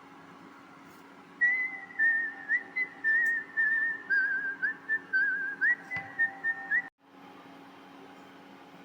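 A high, warbling whistle in a run of short notes, each with a quick trill, stopping abruptly about seven seconds in, over a steady low hum.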